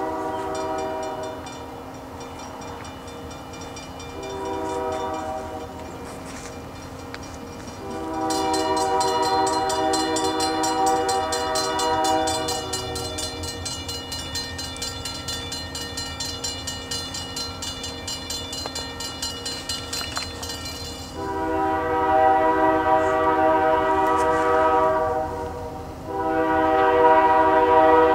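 An approaching diesel locomotive's air horn sounds several blasts for a grade crossing, mostly long with one short, each a chord of several notes. From about a third of the way in, the crossing's warning bell rings steadily with an even, rapid beat, and a low rumble from the train runs underneath.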